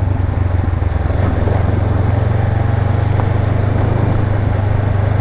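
Honda CB500X's 471 cc parallel-twin engine running at a steady, even note while the motorcycle rides along a gravel track.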